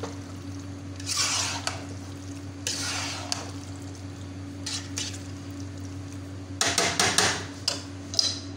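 Metal slotted spatula stirring and scraping thick, creamy penne pasta in a saucepan, in several short bursts, with a run of sharper clinks against the pot about seven seconds in. A steady low hum runs underneath.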